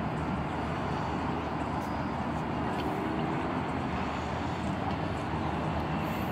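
Steady, even noise of distant freeway traffic.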